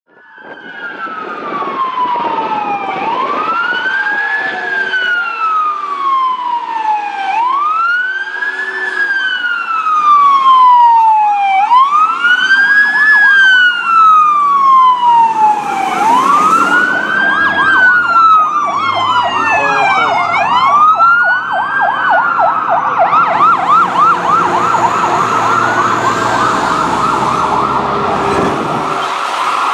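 Fire truck electronic sirens. A slow wail rises and falls about every four seconds, and about halfway through a fast yelp joins it, repeating several times a second while the wail keeps going.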